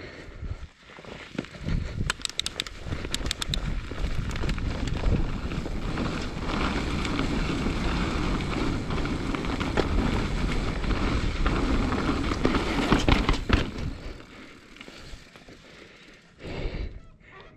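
Mountain bike riding fast down a dirt singletrack: a steady rumble of tyres and rushing air, with the bike rattling over bumps. Sharp clatters come about two seconds in and again around thirteen seconds. It grows quieter as the bike slows onto rock near the end.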